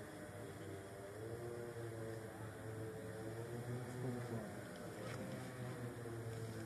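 Faint steady engine-like hum with a slowly wavering tone above it, and a light click about five seconds in.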